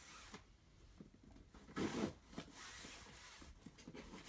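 Cardboard shipping box being handled and opened by hand: faint scraping and rubbing of the cardboard, with a louder rustle about two seconds in.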